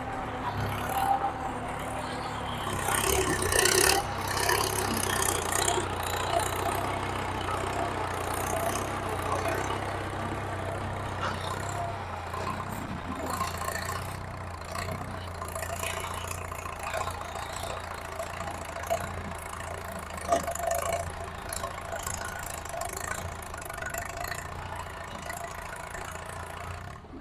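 Engine idling steadily, with its low hum dropping slightly in pitch about halfway through, while people talk in the background.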